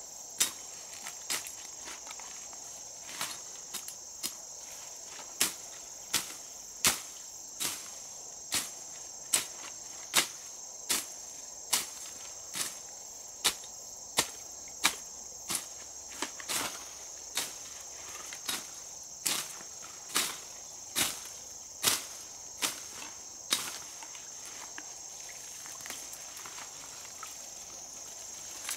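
Insects droning steadily and high, with sharp knocks repeating about every 0.8 s over it, most regular through the middle of the stretch.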